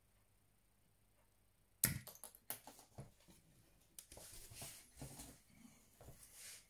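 A sharp snap about two seconds in, followed by a quick run of small clicks and ticks: a mini spring-loaded toothpick gun firing at an apple. Then another click and a stretch of rustling, scraping handling noise.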